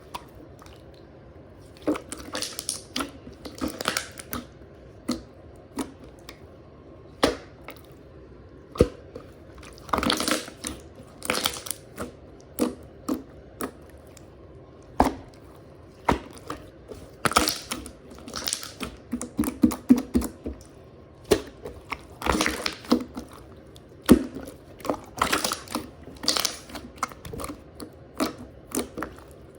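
Slime being pressed, stretched and squeezed by hand, giving irregular runs of crackling, squishing pops with short pauses between them.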